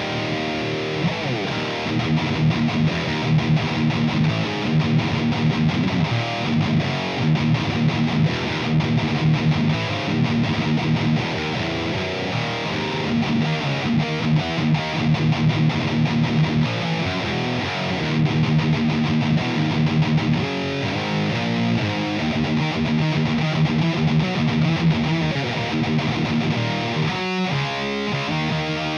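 Heavily distorted electric guitar riffing with chugging low notes, played through a PRS Archon high-gain amp simulation in the STL Tone Hub plugin.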